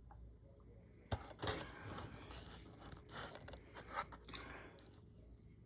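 Blu-ray case in its cardboard slipcover being handled and turned over: a sharp click about a second in, then faint scraping and rustling of cardboard and plastic.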